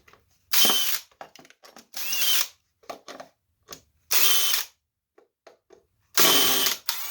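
Handheld power drill run in four short bursts of about half a second each, with light clicks and handling knocks between them.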